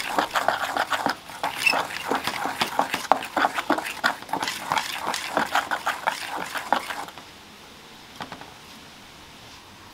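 Wire whisk beating a thick, wet spice paste in an enamel bowl: fast, irregular ticking and slapping strokes of the wires against the bowl and paste, stopping suddenly about seven seconds in.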